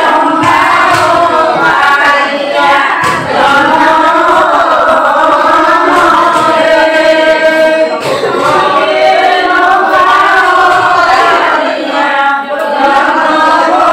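A group of voices singing a devotional hymn together, choir-like and continuous.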